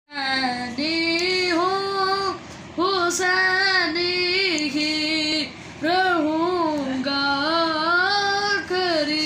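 A boy singing solo and unaccompanied, in long melodic phrases with gliding, ornamented pitch. There are two short breaks for breath.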